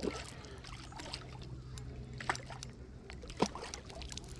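Pond water splashing and sloshing as a landing net is worked around a hooked carp, with a few sharp splashes near the start, a little after two seconds and about three and a half seconds in.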